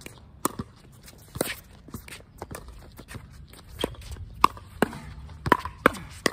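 Pickleball paddles striking a hard plastic ball in a doubles rally: a quick run of sharp pops at uneven intervals, with footsteps and shoe scuffs on the hard court between them.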